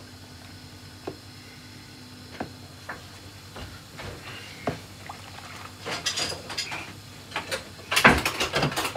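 Kitchen clatter from dishes and cupboards being handled: scattered knocks and clinks that grow busier in the second half, with the loudest burst of rattling about eight seconds in.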